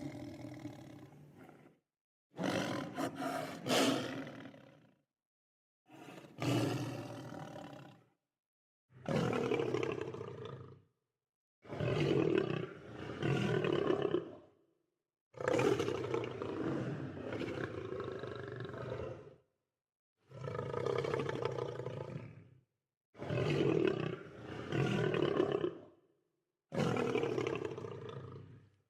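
Lion roaring: a string of about nine separate two- to four-second roars, some swelling twice, each cut off into dead silence before the next.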